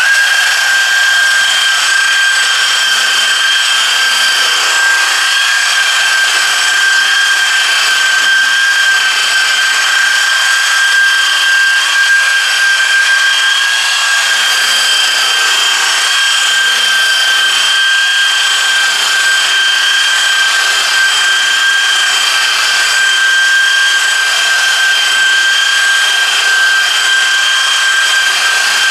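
Electric rotary buffer running steadily at 1800 RPM with a double-faced wool pad, buffing rubbing compound into clear-coated car paint: a steady whine from the motor over the rub of the pad on the paint.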